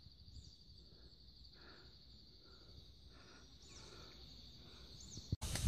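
Faint, steady high-pitched trilling of an insect chorus, with a few faint short bird chirps over it. The sound cuts off abruptly just before the end, where a louder sound starts.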